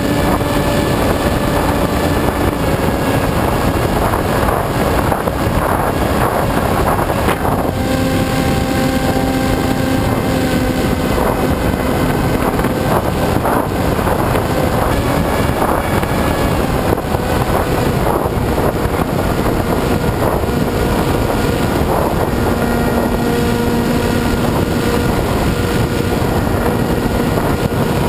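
The AXN Floater Jet's electric motor and propeller running in flight, a steady hum that shifts in pitch a few times with the throttle, heard close up under heavy wind rush on the model's onboard camera microphone.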